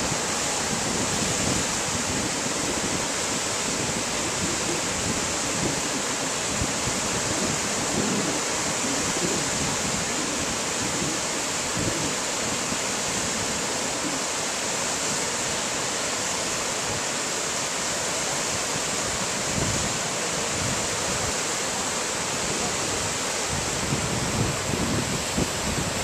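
Steady rush of water pouring over a wide river's low rocky cascades, with gusts of wind buffeting the microphone, a little stronger near the end.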